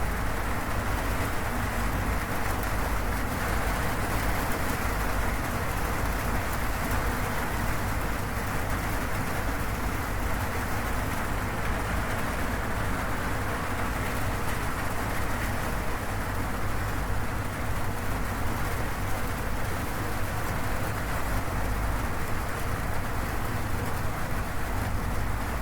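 Steady rain falling on a zinc roof, an even rushing patter with no breaks.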